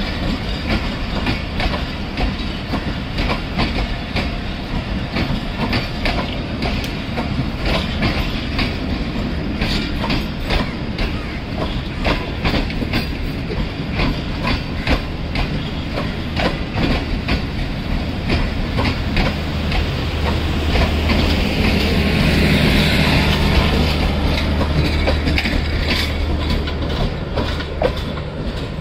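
Passenger train running on the line, its wheels clacking over rail joints in a dense, irregular stream of clicks over steady rolling noise. A low steady hum grows louder about two-thirds of the way through and then fades slightly.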